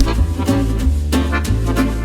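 Upbeat background music with a steady bass line and a regular beat, in a swing style.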